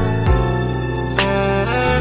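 Saxophone playing a slow melody of held notes over a backing track with a low bass line and a drum hit a little past halfway.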